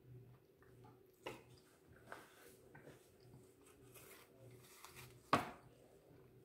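Faint handling noises as a paper napkin is picked up and rustled, with a few short taps and one sharper, louder tap about five seconds in.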